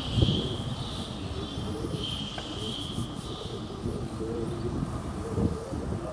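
Street ambience while walking: a steady low rumble, with a high, steady chirring call near the start and again about two seconds in.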